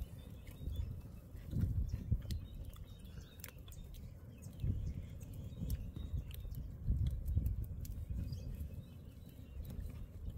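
Open wood campfire crackling, with scattered sharp pops, over a low, uneven rumble.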